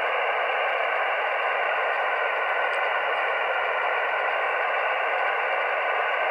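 Yaesu FT-818 receiving on 20-metre single sideband: a steady, narrow midrange hiss of band noise from the radio's speaker, with no station answering the CQ call.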